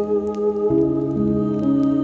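Slow, calm instrumental music of held chords, the chord changing about a third of the way in, with faint crackles of a fireplace ticking in the background.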